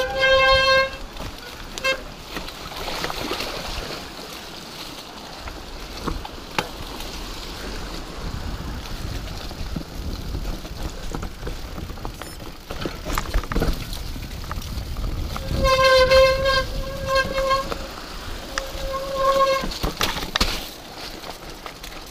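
Mountain bike disc brakes squealing in short bursts, a steady high-pitched tone, in the first second and again twice more near the end. Under them runs the rumble of tyres and wind over the rough trail, with sharp knocks as the bike hits bumps.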